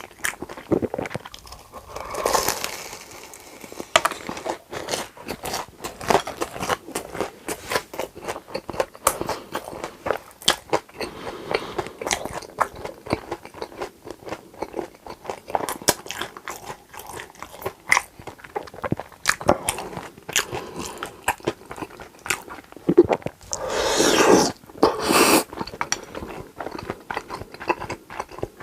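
Close-miked mukbang eating: a steady stream of crunchy bites and chewing, with two louder, longer stretches, about two seconds in and near the end.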